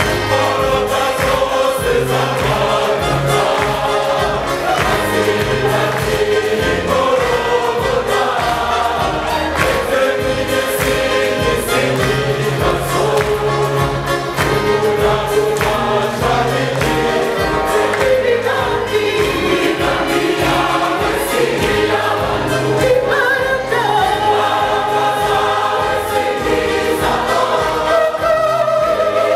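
Large mixed church choir singing a gospel hymn in Kinyarwanda in parts, with electronic keyboard accompaniment holding low bass notes under a steady beat.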